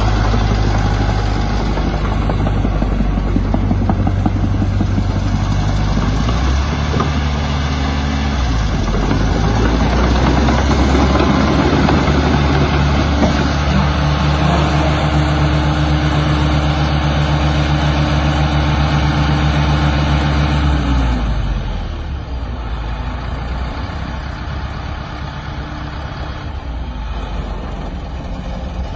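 Caterpillar D5H crawler dozer's diesel engine running. The engine speed climbs about a third of the way in, holds steady and higher, then drops back about three-quarters of the way through.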